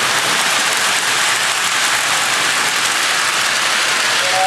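Steady hissing rumble of model trains running on their track, with no distinct clicks or tones.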